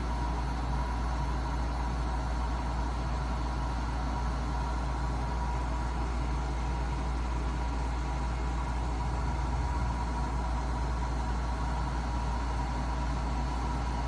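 Black+Decker portable air conditioner running steadily: a constant hum of compressor and fan, with a deep low drone under a faint steady tone.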